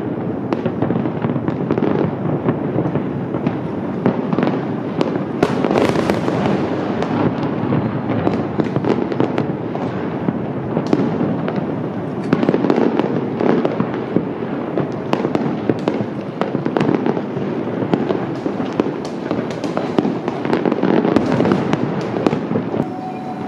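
Fireworks display: a continuous barrage of booming bursts and sharp crackling pops, many overlapping with no break.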